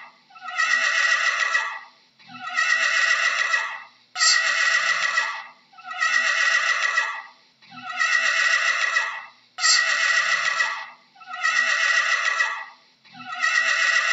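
Horse whinnying: the same neigh, falling in pitch, repeats about every two seconds, some eight times in a row.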